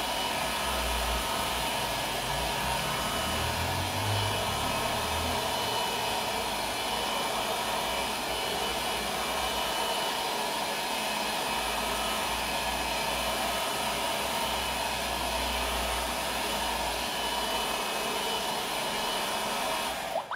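Handheld hair dryer running steadily on a high setting, blowing air onto a freshly painted tin can. It cuts off at the very end.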